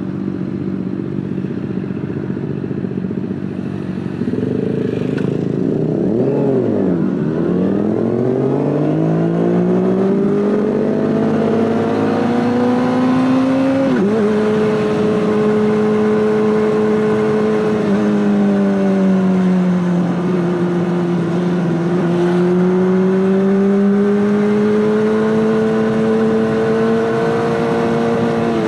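Honda CBR600RR inline-four engine through an Akrapovic exhaust under way. The pitch sits steady, dips low and climbs back, then rises with two sudden drops that sound like upshifts, and climbs again toward the end.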